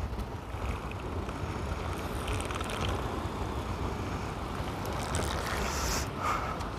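Steady wind rushing over the microphone on an open boat deck at sea, with a few faint rustles of hands threading a live shrimp onto a hook.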